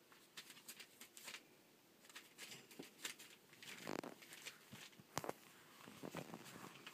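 Faint rustling and crackling of newspaper under a rough collie puppy's paws as it moves about. Scattered sharp clicks come through, with a louder rustle about four seconds in.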